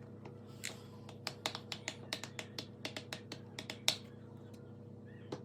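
A quick run of sharp clicks, about five a second, for roughly three seconds, the last one the loudest.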